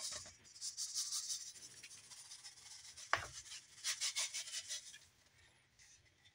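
Dry herb seasoning shaken from a plastic cup onto raw chicken cutlets in a plastic bowl: a faint rustling patter in two spells, one at the start and another around four seconds in, with a single light tap near three seconds.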